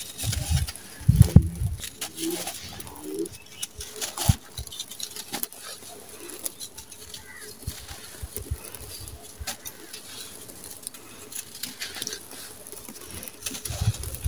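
Dry sand-and-cement blocks crushed and crumbled in bare hands, with gritty crunching and loose sand trickling and pattering onto a sand pile. Dull handling thumps come in the first two seconds and again near the end.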